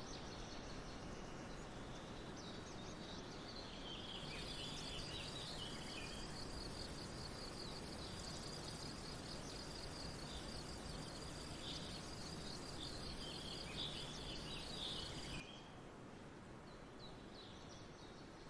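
Outdoor ambience: small birds chirping over a steady hiss, with a fast, evenly pulsed high trill from about four seconds in. Near the end the background cuts suddenly to a quieter one.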